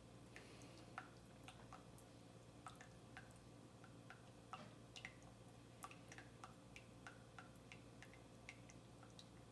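Faint, irregular drips of brewed coffee falling from a hanging paper pour-over filter into the coffee collecting in a glass mug, about one or two drops a second over a quiet room hum.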